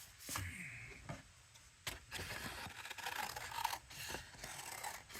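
A sheet of paper rustling and scraping as it is handled on the work surface, in several stretches, with a light click about two seconds in.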